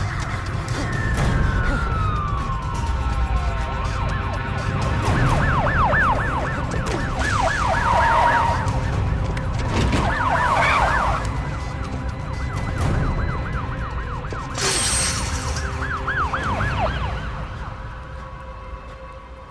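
Police sirens sounding over a low rumble: a long falling wail near the start, then several spells of rapid yelping up-and-down sweeps. A brief loud burst of noise cuts in about fifteen seconds in.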